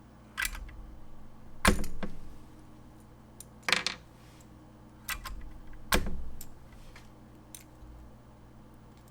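KSA double-shot keycaps being pulled off a Keychron Q1 Pro mechanical keyboard with a keycap puller: irregular sharp plastic clicks and clatters, about four louder ones among fainter ticks.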